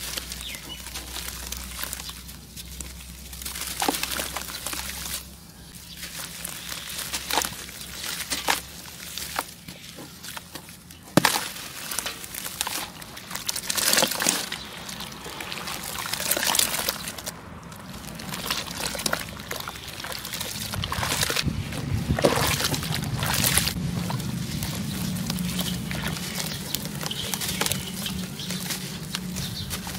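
Wet sand-cement lumps squeezed and crumbled by hand into a basin of water: crumbs crackling apart, water sloshing and trickling as the pieces break and drop in.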